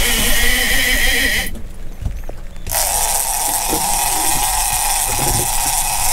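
Fishing reel's drag whining as line is pulled off the spool, high-pitched at first, breaking off briefly about a second and a half in, then going on at a lower, steadier pitch.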